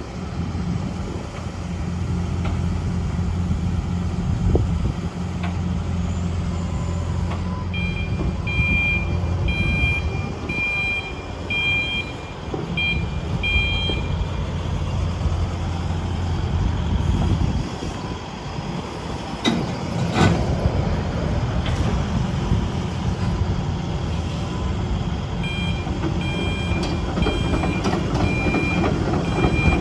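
Sany SY135C tracked excavator's Isuzu diesel engine running steadily, with its electronic warning alarm beeping in rapid two-tone pulses for several seconds, twice. A few sharp knocks come about two-thirds of the way through.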